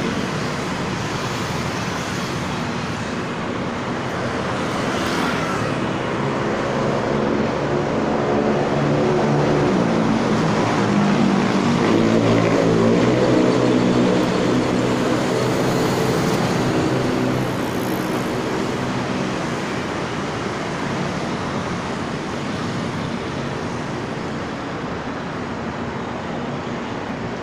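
Steady city road traffic, with a large engine passing that grows louder and fades, loudest about halfway through.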